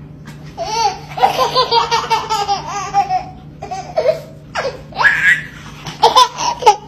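A baby laughing hard: a long run of belly laughs, then several shorter bursts of laughter.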